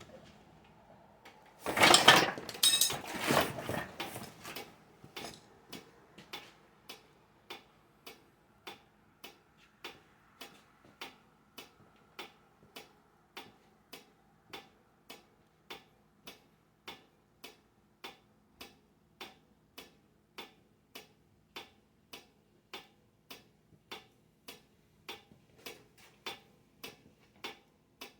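A loud clatter about two seconds in, then a Wabco FN16-A railroad crossing flasher relay clicking steadily, about one and a half clicks a second, as it alternates the signal's flashers.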